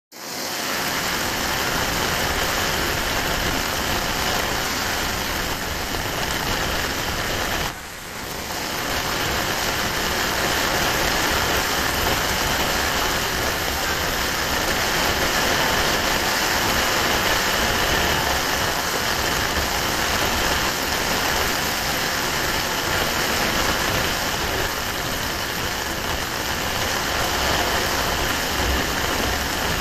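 Sudden heavy downpour on wet paving stones: a dense, steady hiss of rain splashing on the street, dipping briefly about eight seconds in.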